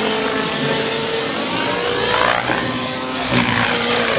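Radio-controlled model helicopter flying overhead, its engine and rotor whine holding several steady pitches and then dipping and climbing again about halfway through as it manoeuvres.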